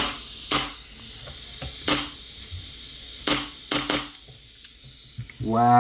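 About six sharp, irregularly spaced clicks from a Polarstar F2 HPA airsoft gun being handled with air connected, over a faint hiss of compressed air leaking. The owner puts the leak down to faulty solenoids.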